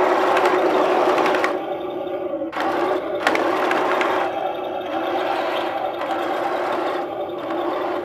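Electric gear motors of a remote-control tank's Heng Long drive system whirring, with its tracks rattling over the ground as it drives and turns. The whir eases off a couple of times and picks back up.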